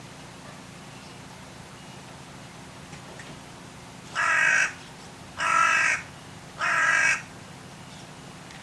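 Carrion crow giving three harsh caws, each about half a second long and spaced a little over a second apart, starting about four seconds in.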